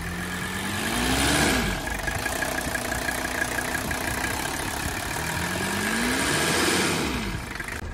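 Mercedes W123 diesel engine revved up and let back down twice, about five seconds apart, idling steadily in between. This is a throttle test of the accelerator linkage just after its pivot mount bushing was replaced.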